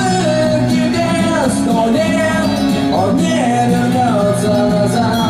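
Live indie-rock band playing through a club PA, with a melody line sliding between notes over a steady bass and rhythm part.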